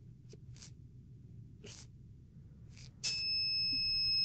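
A Jiaxun APL801 handheld engine oil tester sounds a steady, high electronic beep beginning about three seconds in, signalling that its oil-quality reading is done. Before the beep, a few faint short puffs of hiss.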